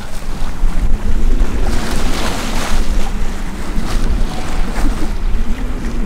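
Wind buffeting the microphone on a sailboat under way, over the rush of the sea along the hull, with a swell of wave noise a couple of seconds in.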